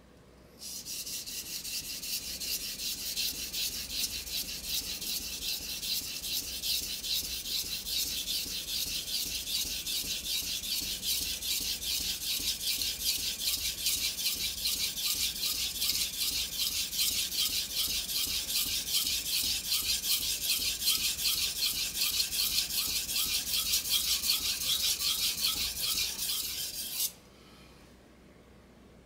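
A steel kitchen knife blade rasping back and forth on a wet whetstone in fast, even strokes as the heel of the blade is sharpened. The strokes stop abruptly near the end.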